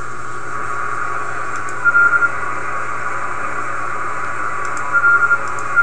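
Receiver static from a Kenwood TS-2000 being tuned across the 80 meter band: a steady, narrow hiss with no signal on frequency. Short high beeps come about two seconds in and again near the end.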